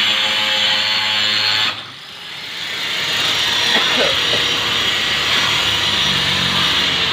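Angle grinder running and cutting 15 mm plywood, with a loud, steady hiss. The sound breaks off abruptly about two seconds in, then builds back up and runs steadily again.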